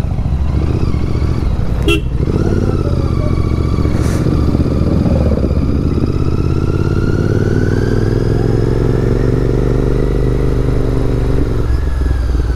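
Motorcycle engine running steadily. Its pitch climbs slowly over several seconds and falls away shortly before the end. There is a sharp click about two seconds in.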